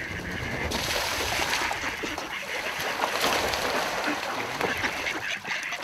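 Mallards splashing across a pond, churning the water. The rush of splashing comes in suddenly about a second in and keeps going.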